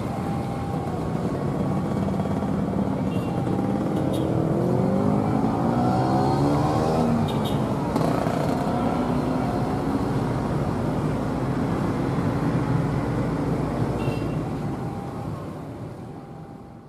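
Diesel locomotive engine running under load, its pitch climbing for a few seconds near the middle and then holding steady, with a few light clicks; the sound fades out near the end.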